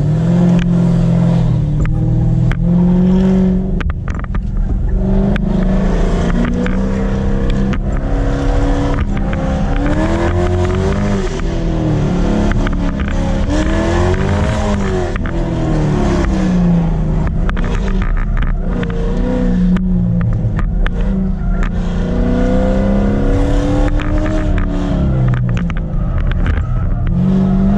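Dodge Charger Scat Pack's 392 HEMI V8 accelerating hard and backing off again and again on an autocross run, its pitch rising and falling through the corners.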